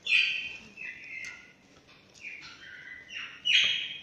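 A bird chirping repeatedly: short, high calls that each fall quickly in pitch, about one a second.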